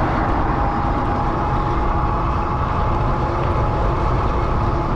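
Lectric XP e-bike ridden at speed: a steady rush of wind and road noise, with a thin steady whine running through most of it.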